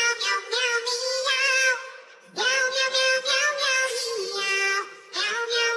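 High-pitched, synthetic-sounding singing voice carrying a melody in phrases, with short breaks about two seconds in and again near five seconds in.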